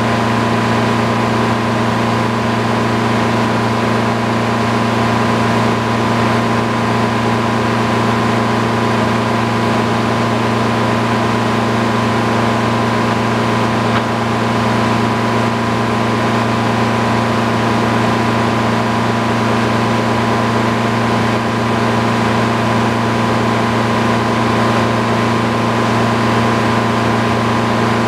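Engine-driven circular sawmill running at a steady speed, its large blade spinning on belt drives while sawing white pine. The hum holds one even pitch throughout.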